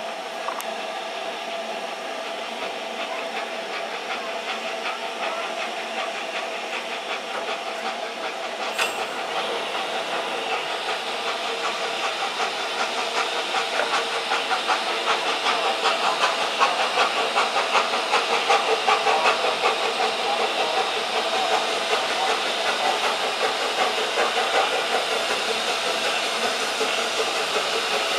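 SECR P class tank steam locomotive hissing steam as it draws its carriages slowly in, with a fast rhythmic pulsing, growing louder as it approaches. A single brief click about nine seconds in.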